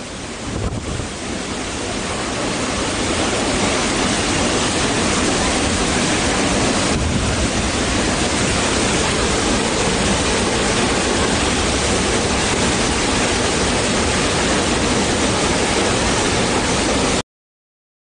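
Waterfall: a steady rush of falling water that swells over the first few seconds, then cuts off suddenly near the end.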